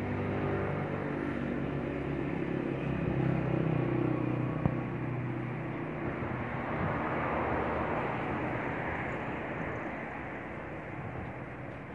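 Road traffic: a low engine drone for the first half, then a rushing noise that swells past the middle and slowly fades.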